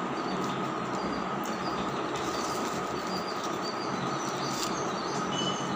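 Steady background noise with a low hum and a steady high tone, with brief high chirps and a few faint crackles now and then.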